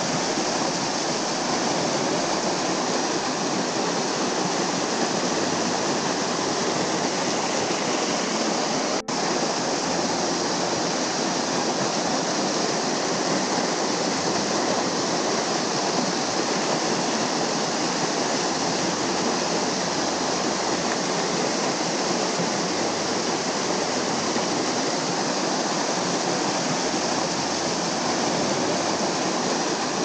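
The Varovitets waterfall: thin streams of water falling over a mossy limestone cliff onto rocks and into a pool, giving a steady rushing splash. It breaks off for an instant about nine seconds in.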